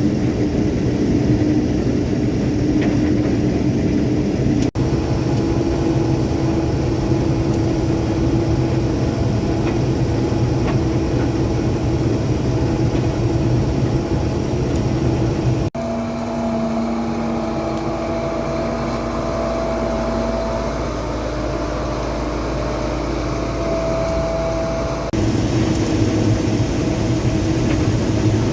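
Heavy diesel vehicle engine running steadily, broken by abrupt cuts about five and sixteen seconds in. From about sixteen to twenty-five seconds a different, steadier engine drone with a high steady whine takes over, then the first engine sound returns.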